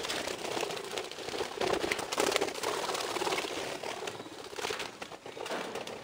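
A group of budgerigars chattering and warbling, a steady stream of many short, quick chirps and squeaks.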